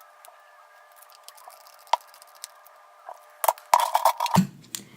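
Small sharp clicks and taps of a pentalobe screwdriver taking the bottom screws out of an iPhone 6: a single click about two seconds in, then a quick cluster of clicks toward the end.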